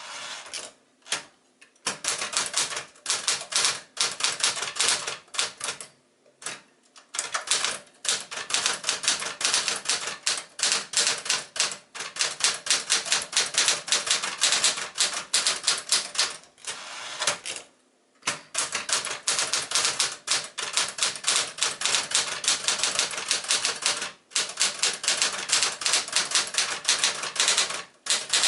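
Sears Celebrity manual typewriter, a Smith-Corona Galaxie under another badge, being typed on: fast runs of sharp key strikes, several a second, broken by brief pauses.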